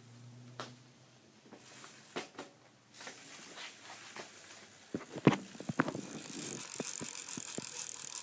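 BMX rear wheel spun by hand, with its 16-tooth freewheel: a cluster of clicks and knocks about five seconds in as it is set going, then a steady high hiss from the spinning wheel with the rim brake pads rubbing on it.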